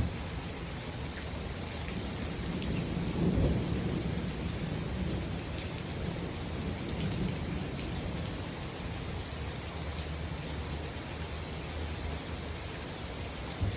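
Steady rain falling, with a low roll of thunder that swells about three seconds in and slowly fades away. A short, sharp click sounds at the very start and again near the end.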